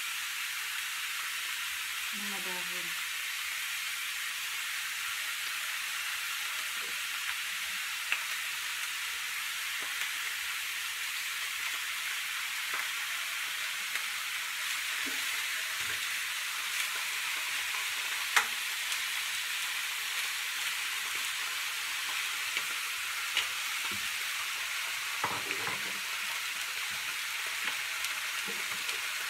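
Pork ribs frying in oil in a pan, a steady sizzle, with a few sharp knocks of a wooden spatula against the pan as the ribs are turned.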